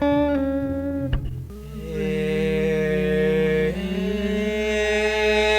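Lo-fi home-recorded music: a single held hummed note, then after a brief dip several voices holding a steady droning chord, with one note shifting about two seconds later.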